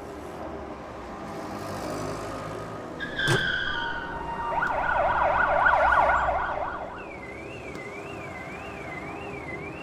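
Emergency vehicle sirens over a low, steady city hum. About a third of the way in there is a sharp hit; then a fast wailing siren sweeps up and down loudest around the middle, and it gives way to a higher, gentler warble with about two rises a second.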